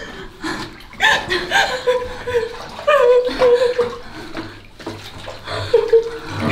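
Laughter and giggling in short bursts, about one a second, with water splashing in a bathtub.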